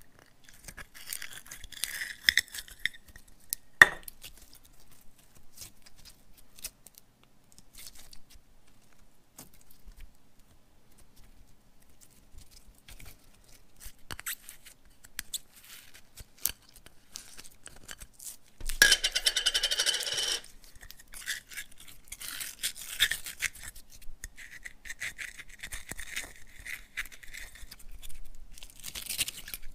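Toys handled by hand: scattered small clicks, scrapes and rustles, with a sharp click about four seconds in and a louder noisy burst lasting about a second and a half, about two-thirds of the way through.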